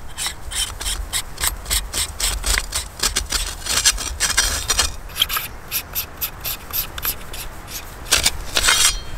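Hands twisting the threaded handle segments of a multi-tool shovel kit together: repeated rasping rubs of palms on the grooved grips and threads turning, a few strokes a second.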